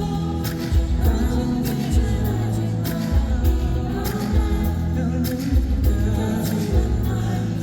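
Live pop song played through a concert hall's sound system: a steady drum beat and heavy bass under a male lead vocal.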